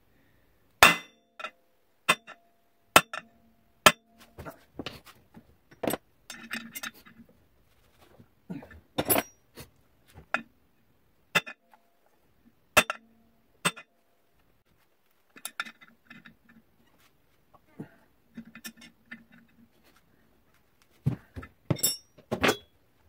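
A hammer tapping on the end of a clutch puller threaded into a snowmobile's primary clutch: sharp metal-on-metal clinks at irregular intervals, some with a short ring. The puller is under tension and the taps are meant to shock the seized clutch loose from its crankshaft taper.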